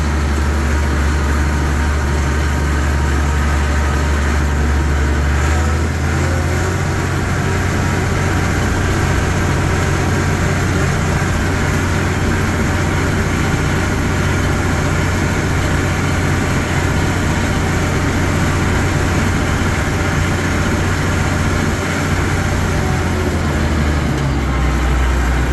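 Allis-Chalmers 190 XT Series 3 tractor engine running steadily as the tractor drives along, heard from inside its enclosed metal cab. The engine note shifts slightly about five seconds in and again near the end.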